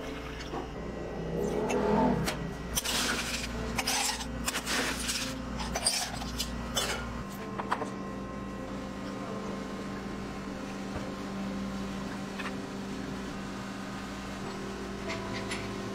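Glassware and ice clinking and knocking on a drink counter, a cluster of sharp clicks in the first half, then a steady machine hum with a few light ticks.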